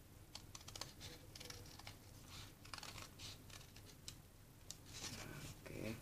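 Scissors snipping through thick sketchbook paper, a faint run of many short crisp clicks as the blades close again and again.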